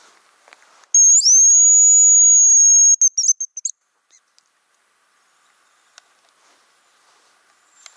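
Champion hazel grouse decoy whistle sounding the hazel grouse call: one long, loud, very high steady whistle of about two seconds, breaking into a short stuttering trill of a few quick notes.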